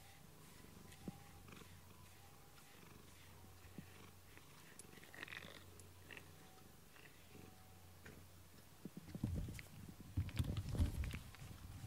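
Domestic cat purring steadily while its head is brushed, with faint brush ticks. About nine seconds in, a louder rustling of a fleece blanket moving close by lasts a couple of seconds.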